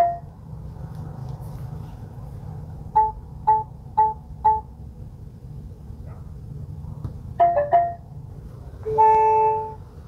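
Yale smart lock keypad beeping as keys are pressed: four short two-note beeps about half a second apart, then a quick run of chime notes, and near the end a longer, buzzier tone.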